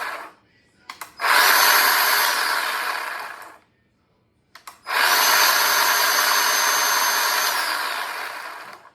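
Bauer 10-inch 20-volt cordless electric chainsaw run in short trigger bursts without cutting. An earlier run winds down just after the start, then the saw runs twice more, about two and a half seconds and then about four seconds, each starting abruptly with a steady high whine and winding down when the trigger is released.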